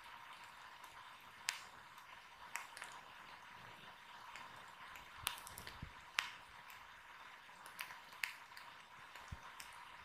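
Wood fire crackling faintly: scattered sharp pops, about half a dozen, over a quiet steady hiss.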